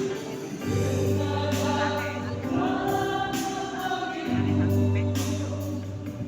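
Church choir singing a hymn in several voices, over steady low bass notes from the accompaniment.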